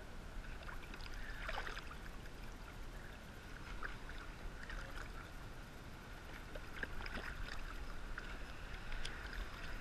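Seawater lapping and splashing against a waterproof-housed action camera held at the surface, heard muffled through the housing as a steady wash with small splashes scattered through it.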